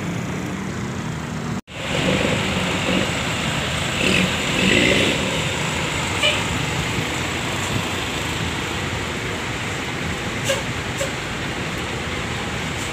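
Steady vehicle noise of idling buses and passing traffic, broken by a sudden momentary dropout about a second and a half in.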